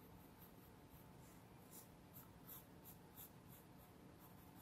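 Pencil scratching faintly on drawing paper in a series of short, quick strokes.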